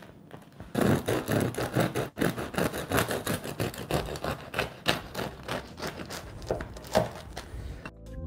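Serrated bread knife sawing through a freshly baked crusty loaf, the crust crackling and rasping with each stroke. It starts about a second in, in quick irregular strokes.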